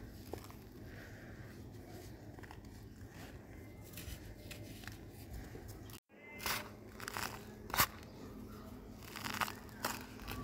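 Dry red dirt being squeezed and crumbled by hand, with soft crunching as lumps break apart between the fingers. After a brief dropout a little past the middle, the crunches come sharper and louder, several in quick succession.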